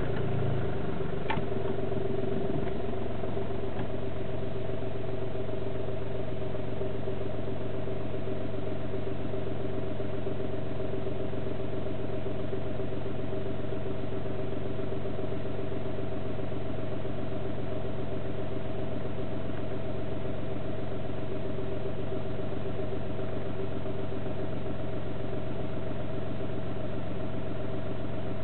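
VW Polo 9N3 1.4 TDI three-cylinder diesel idling just after a cold start, settling within the first couple of seconds into a steady, even idle.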